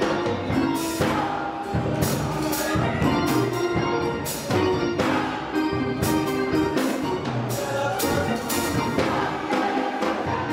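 Live church gospel music: band with drums and cymbal hits playing, with pitched keyboard or organ lines and some singing.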